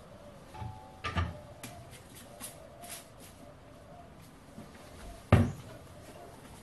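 Clunks of a reciprocating saw and other tools being handled on a workbench during a blade change: a couple of knocks about a second in and one loud, sharp knock about five seconds in.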